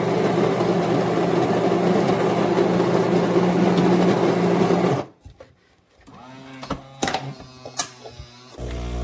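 MEROL super-automatic espresso machine running with a steady mechanical buzz while it finishes making a drink, cutting off suddenly about halfway through. A few quiet clicks and knocks follow, then a steady low hum starts near the end.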